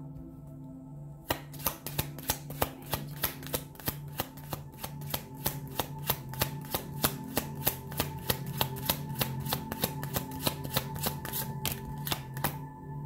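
A deck of tarot cards being shuffled by hand, the cards snapping together in a quick, even run of about four clicks a second that starts about a second in and stops near the end. Soft ambient background music with steady held tones plays underneath.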